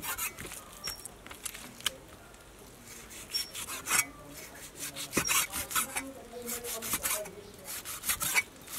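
A cleaver slicing raw beef on a wooden chopping block: repeated knife strokes cut through the meat and scrape and tap against the board, coming in uneven clusters.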